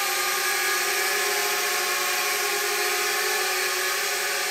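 Eachine E52 folding pocket quadcopter hovering in place, its four small motors and propellers giving a steady whine that holds one pitch.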